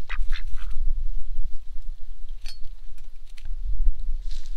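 Wind buffeting the microphone with a steady low rumble, and a duck giving a few short quacks shortly after the start.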